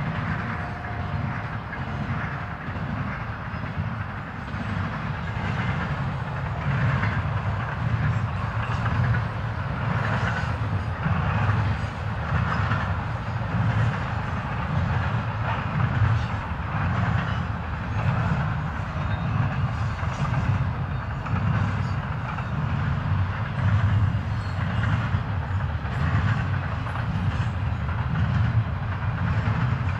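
Double-stack intermodal freight train rolling past: a steady rumble of steel wheels on rail, with regular clickety-clack surges as the well cars pass.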